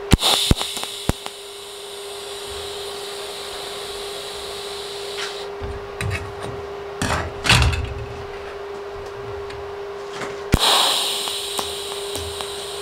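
TIG welding arc tacking thin aluminium plates. The arc strikes with a sharp crack and runs as a short buzzing hiss, once at the start and again about ten and a half seconds in, over a steady hum. A few knocks come in between, around seven to eight seconds, as the plates are handled.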